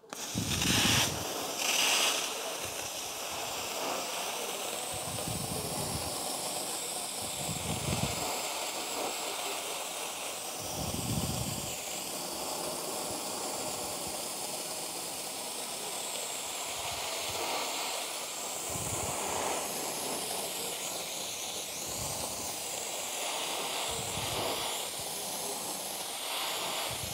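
Dry ice blaster running at a low 30 PSI: a steady hiss of compressed air and dry ice pellets jetting from the nozzle onto a car's painted fender. It surges louder briefly about one and two seconds in.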